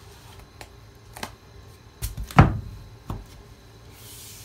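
Handling knocks and one heavy thump about two and a half seconds in as a roll of thermal break tape is worked with, then a soft rubbing hiss near the end as a hand presses and smooths the tape onto the bus's metal window rail.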